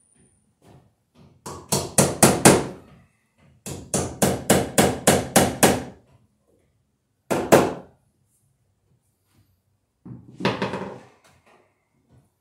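Hammer driving nails into a wooden stud to fasten an electrical box: a quick run of about six blows, a longer run of about nine, then two more, and a final shorter flurry of blows.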